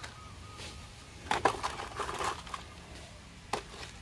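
Muddy plastic toy trucks being picked up and set down in a plastic basket: light plastic clatters and knocks, bunched in two short clusters around the middle, with one more knock near the end.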